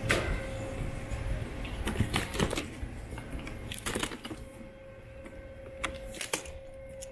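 Airport baggage reclaim sounds: a steady faint hum with scattered sharp clacks and knocks.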